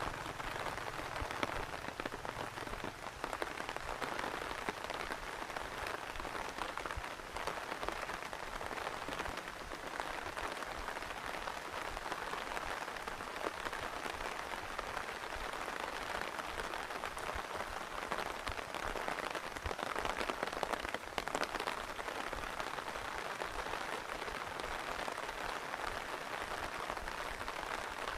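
Steady rain falling, a dense, even patter of many drops striking surfaces.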